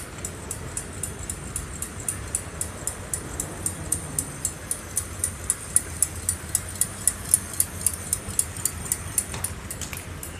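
Even, rapid clicking, about four ticks a second, over a low rumble; the clicks grow louder towards the middle and fade near the end.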